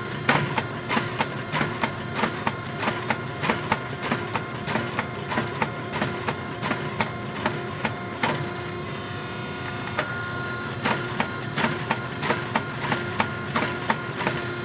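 Rapid, even forging blows on a hot steel billet being drawn out between drawing dies, about three a second, over a steady machine hum. The blows stop for about two and a half seconds past the middle, then start again.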